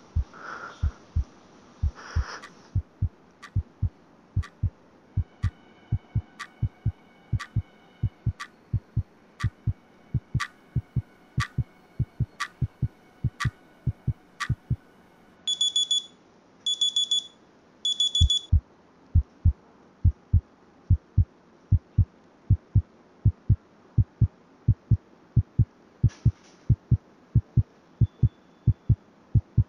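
Low heartbeat-like thuds beat steadily and quickly throughout. For the first half a sharp clock-like ticking runs over them, about two ticks a second. Around the middle come three short bursts of rapid high electronic alarm beeps.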